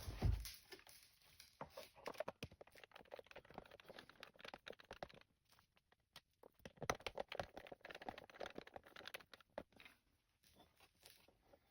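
Small irregular metallic clicks and scraping of a tool working out the two Torx bolts that hold a truck bed-rail storage lock assembly. The sound comes in two busier stretches with a short lull between them.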